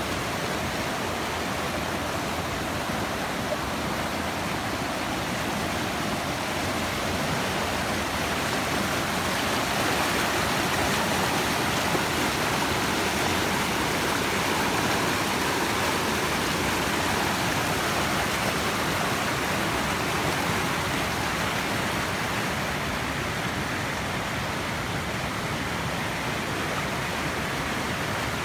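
Small waterfall: water falling and splashing in a steady rush.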